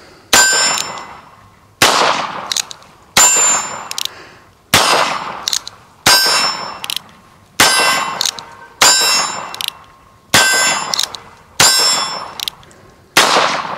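Colt Frontier Scout .22 LR single-action revolver fired about ten times at a slow, even pace, roughly one shot every second and a half. Each shot comes with a ringing ping of the bullet striking a steel target.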